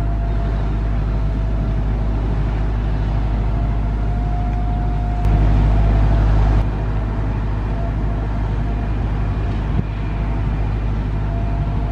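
Jet airliners on final approach, a steady low rumble with a thin, steady engine whine above it; the rumble grows louder for about a second and a half near the middle.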